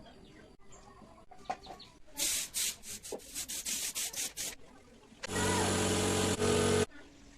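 Wood being sawn or rasped by hand in quick strokes, about four a second, for a couple of seconds. Then a small motor runs steadily and loudly for about a second and a half and cuts off suddenly.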